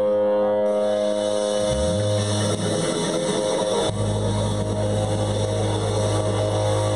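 Live band music with guitar: held chords ringing over a steady low note that comes in about two seconds in and grows stronger about four seconds in.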